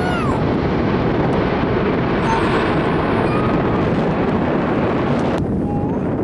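Jet engines of a Boeing 747 running as the four-engined jet rolls down the runway: a loud, steady rush with wind buffeting the microphone. About five seconds in the sound turns abruptly duller, losing its hiss.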